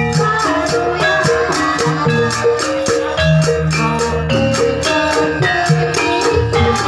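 Lively dance music: a quick, even rattling beat of about four strokes a second over pitched melody notes and low bass notes.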